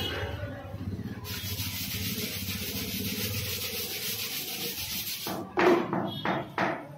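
Brush scrubbing a soapy motorcycle tyre and wheel: a steady hissing rub, then a few separate, louder scrubbing strokes near the end.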